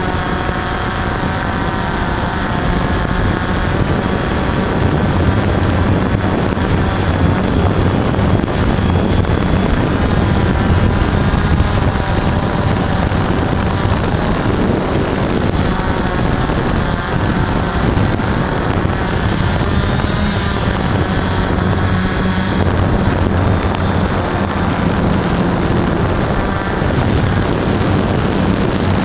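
Multirotor drone's electric motors and propellers running steadily, heard up close from the drone itself. The whine drifts slightly up and down in pitch as it manoeuvres.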